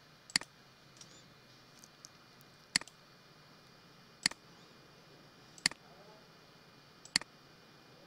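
Computer mouse clicking: five sharp clicks about a second and a half apart, each followed at once by a softer one.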